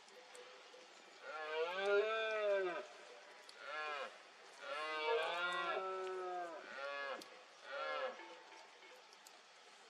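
Red deer stag roaring in the rut: a long roar, a short one, a second long roar, then two short roars near the end.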